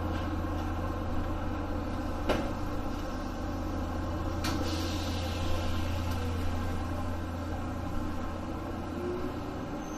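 Sanyo Electric Railway commuter train: a steady low electrical hum with two sharp knocks, the second followed by a brief hiss of air. A faint rising whine comes in near the end.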